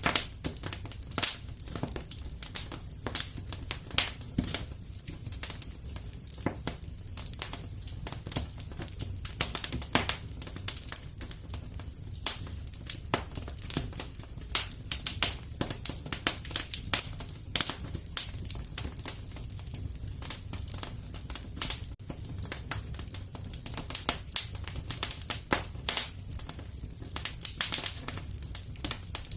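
Wood fire in a fireplace crackling: irregular sharp pops and snaps over a low steady rumble of the flames.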